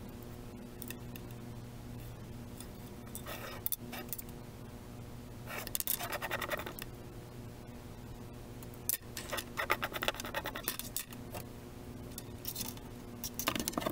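Hands handling a fishing rod and monofilament line while threading the line through the rod's guides, giving scratchy rustling in several short spells, over a steady low hum.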